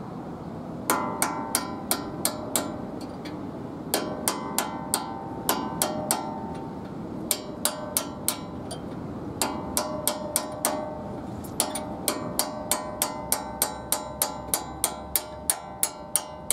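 A hammer striking a steel punch to drive out a front brake caliper pin on a 1993 Ford F-150, each blow a sharp, ringing metal tap. The taps come in short bursts of three to six with pauses between. Over the last few seconds they turn into a steady run of about three taps a second.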